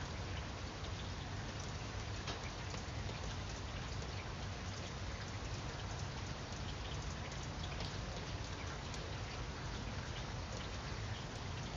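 Steady light rain, with individual drops heard as faint scattered ticks.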